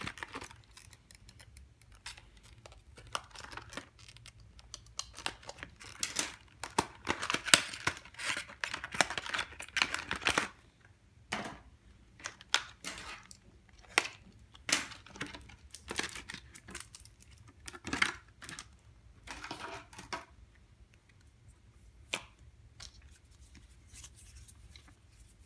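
A trading card trial deck being unpacked by hand: the box and wrapping are torn open with crinkling and tearing, busiest for a few seconds in the first half, then scattered clicks and snaps as the cards are pulled out and handled.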